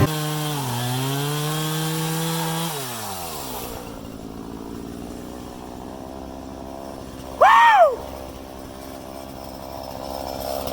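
Chainsaw running at speed, then dropping back to a steady idle about three seconds in, picking up again briefly near the end before cutting off. About halfway through, a short loud squeal rises and falls once.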